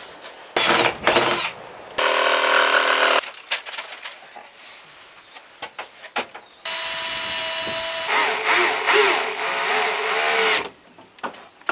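Power drill driving screws in separate bursts: two short runs in the first few seconds, then a longer run of about four seconds in the second half, its pitch wavering near the end.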